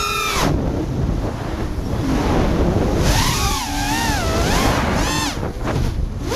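FPV racing quad's DYS 2205 brushless motors and 5-inch props heard from the onboard camera, with wind rushing over the microphone. The motor whine drops away about half a second in as the throttle is cut. From about three seconds on it wavers up and down and sweeps up sharply with quick throttle punches.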